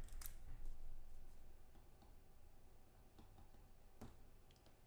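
Quiet room with a few faint, scattered clicks and taps of cards and plastic holders being handled on a tabletop; the sharpest click comes about four seconds in.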